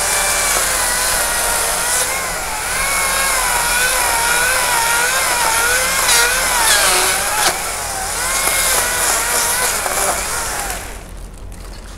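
Makita top-handle battery chainsaw cutting wood, its motor whine dipping and rising in pitch as the chain loads in the cut, over a steady hiss of chain noise; it stops about eleven seconds in.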